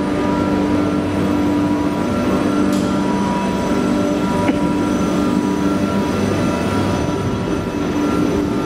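Steady factory machinery hum: a continuous rumble with several held tones running through it, loud and unchanging.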